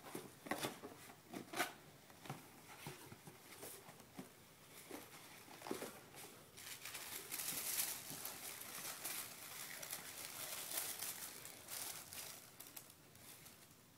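Packaging being handled and unwrapped by hand: a paperboard box is opened, with scattered rustles and taps, and its wrapping crinkles. The crinkling grows denser and busier from about halfway through, then tails off near the end.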